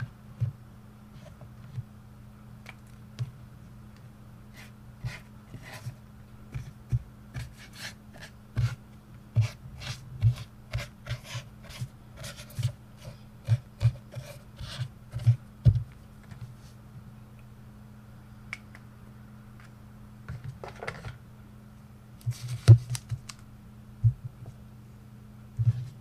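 Brush pen writing on a sheet of paper on a desk: irregular short taps and scratchy strokes as the pen tip strikes and drags across the paper, with a pause of a few seconds partway through, over a steady low hum.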